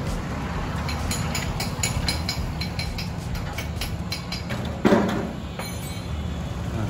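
A plastic transfer sheet carrying a vinyl sticker crackles and rustles in short clicks as it is handled and laid against a panel, with one louder rustle about five seconds in. A steady low hum runs underneath.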